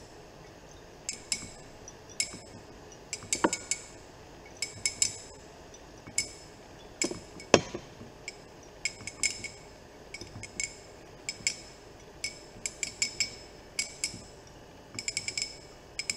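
Glass conical flask clinking in irregular clusters of sharp little taps as it is swirled under the burette during a titration, mixing the dripping acid into the indicator solution. Two duller knocks of glass come about 3.5 and 7.5 seconds in.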